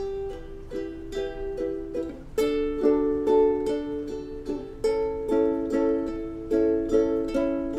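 Ukulele strummed alone in an instrumental break between sung verses, a steady strum moving through chord changes, getting louder about two and a half seconds in.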